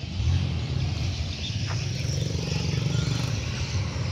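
Street traffic: a motorbike engine running nearby, low and steady.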